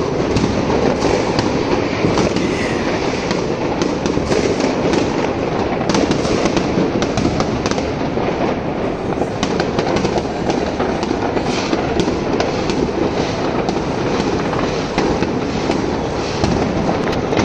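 Dense, continuous barrage of fireworks: many overlapping bangs and crackles merging into a steady rumble, with frequent sharper cracks standing out.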